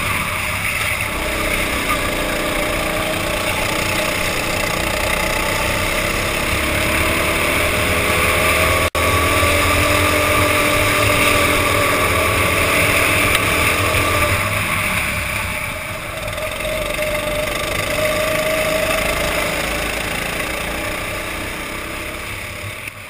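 Go-kart engines running through a race, with the pitch rising and falling as the throttle opens and closes through the corners. The sound drops out for an instant about nine seconds in and fades away near the end.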